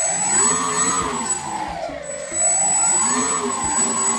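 Electric motor and propeller of a foam RC Cessna 182 model running on the ground, with the whine rising and falling twice as the throttle is opened and eased back. A steady high-pitched whistle runs alongside it.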